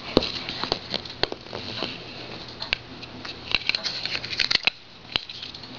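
Irregular light clicks and taps from a cat batting and clawing at a plastic drinking straw on a fabric couch cushion, with a quick flurry of them a little past halfway through.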